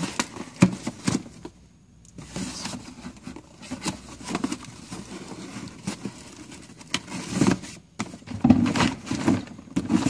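Handling noise of equipment and containers being moved about: scattered clicks, knocks and scrapes, with a brief quiet pause about two seconds in.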